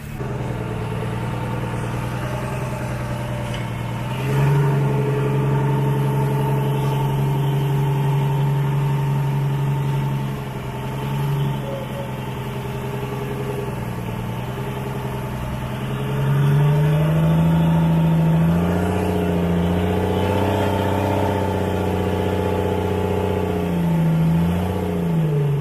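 Fishing boat's engine running steadily and revving up and back down. Its pitch steps up about four seconds in, dips briefly near the middle, rises again past the middle and wavers up and down near the end.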